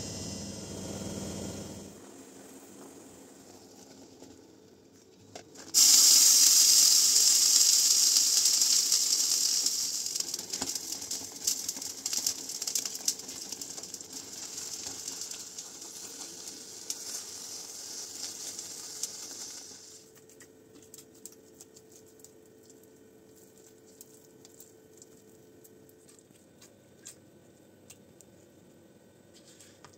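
Hot butter and water in a steel saucepan hissing and sizzling: the hiss starts suddenly about six seconds in, loud at first, and fades away over the next fourteen seconds, with a silicone spatula clicking and scraping against the pan as it stirs. After that, only quieter scattered clicks of the spatula working the choux dough.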